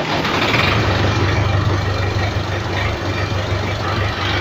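Massey Ferguson 275 tractor's diesel engine running steadily through an old exhaust whose muffler has blown out, giving a loud, rough, pulsing exhaust note.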